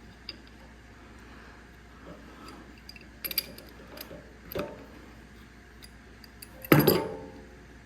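Small hard clicks and clinks of tools and carburetor parts being handled while the choke cable is worked off an old carburetor, a few scattered through, then one louder metallic clank with a brief ring near the end.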